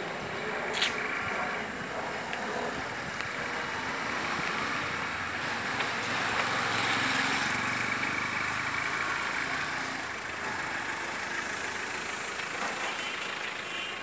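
Street traffic noise with a small hatchback, a Nissan Micra, driving close by; the engine and road noise grow loudest a little after halfway.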